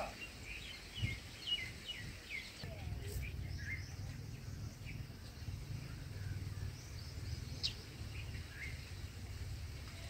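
Red-whiskered bulbuls at the nest during feeding: a run of short, high chirps in the first few seconds, then a few scattered ones. A steady low rumble sets in under them after about two and a half seconds.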